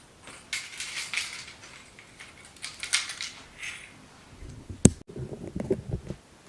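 Crinkly rustling of plastic packaging being handled, in two stretches, then a sharp click and a few dull knocks as parts are set down.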